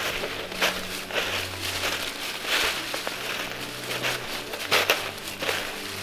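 Footsteps crunching through dry leaf litter, a step every half second to a second.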